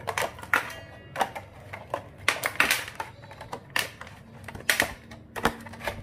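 Thin clear plastic chocolate mould being flexed and pressed, giving a quick, irregular run of sharp clicks and cracks as frozen coriander cubes pop loose from it.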